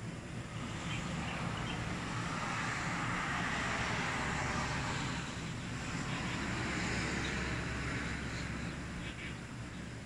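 Vehicles passing on a road, their noise swelling and fading twice: once from about two to five seconds in, and again around seven to eight seconds in.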